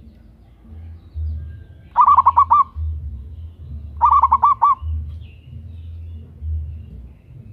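Zebra dove (perkutut) cooing: two phrases about two seconds apart, each a quick run of five or six short staccato notes, over a low, uneven rumble.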